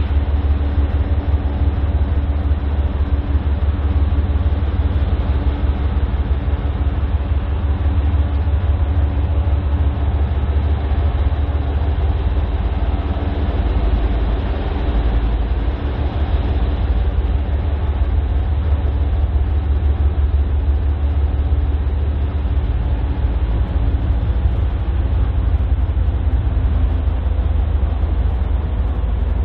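Freight train running past with a steady low rumble that does not let up.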